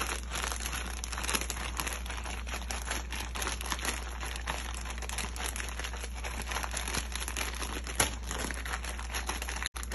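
Ziploc plastic bag crinkling and crackling as it is worked by hand to mix boneless chicken feet with a black bean sauce marinade inside. The crackle is dense and irregular, with one sharper click about eight seconds in and a brief cut-out near the end.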